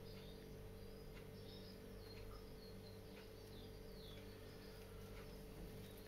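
Near silence: a steady low hum, with a few faint, short high chirps that fall in pitch and some soft clicks.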